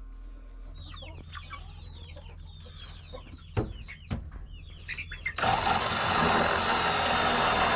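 Hens clucking, a run of short falling calls, with two sharp knocks in the middle. About five seconds in, a loud, steady rushing noise of unclear source starts suddenly and drowns them out.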